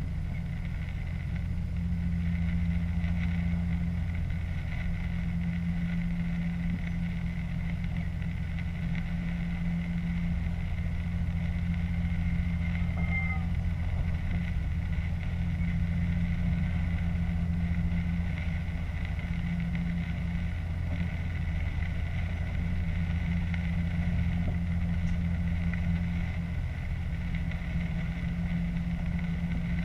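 Diesel multiple unit heard from the driver's cab at running speed: a steady low engine and running drone that keeps an even level throughout. A short high squeak comes about halfway through.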